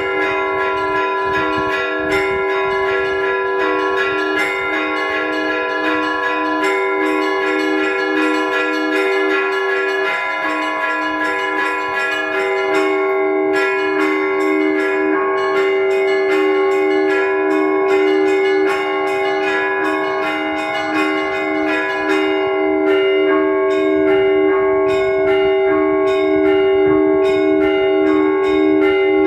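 Russian Orthodox church bells rung by hand from a belfry in a continuous peal: many bells of different pitches sound together, a low bell beats steadily under quick, repeated strikes of the smaller bells.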